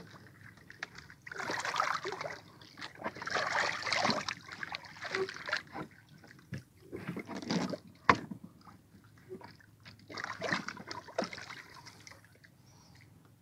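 Sea water splashing and sloshing against the side of a small outrigger boat in several bursts, as an arm works in the water alongside the hull. A single sharp knock comes about eight seconds in.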